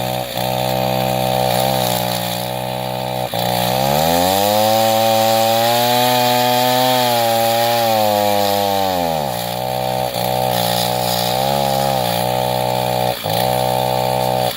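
Chainsaw running under load while cutting, its motor speed sagging and picking back up several times as it bogs down, which an onlooker thinks comes from putting too much pressure on the saw.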